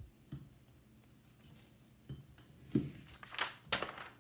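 Pages of a picture book being handled and turned: a soft bump about two and a half seconds in, then two brief paper rustles near the end.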